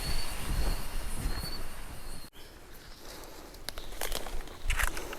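Forest at night: a steady hiss with an insect's high trill coming and going, cut off abruptly a little over two seconds in. Then a quieter forest, with scattered crackles and rustles of leaves and twigs growing near the end.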